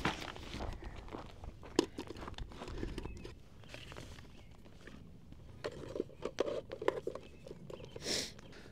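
Rummaging through camp gear: scattered crunches, clicks and knocks of things being handled and moved about, with a short rustle near the end.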